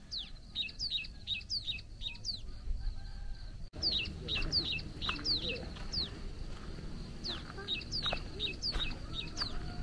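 Birds chirping: a quick series of short downward-sliding notes, a few each second, over a steady high insect buzz, with a brief break about four seconds in.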